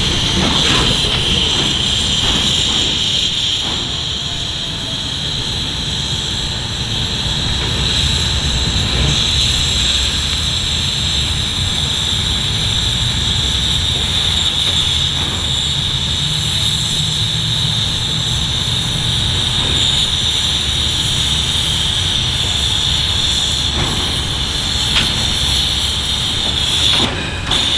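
Narrow-gauge K-28 steam locomotive No. 473 rolling slowly past, with a steady high hiss of steam over a low rumble of the running gear.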